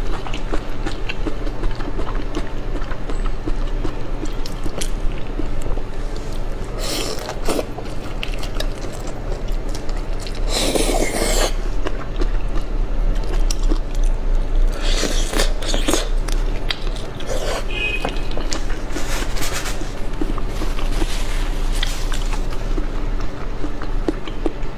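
Close-miked eating sounds of shell-on prawns in chili sauce being peeled, bitten and chewed, with several louder noisy bursts.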